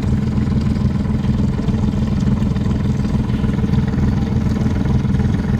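Motorboat engine running steadily, heard from on board the boat.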